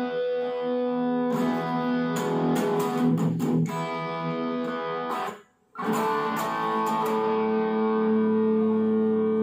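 Japanese-made Ibanez RG570 electric guitar played through a small combo amplifier: picked notes and long ringing held notes. The sound cuts out abruptly for about half a second near the middle, then a held chord rings on.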